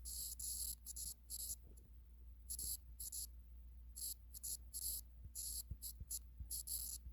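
Faint pen scratching on paper in short, irregular strokes, as someone writes, over a steady low hum.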